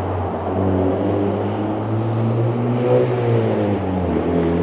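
Street traffic: a motor vehicle's engine running over a steady low hum, its pitch climbing about halfway through as it accelerates, then dropping back.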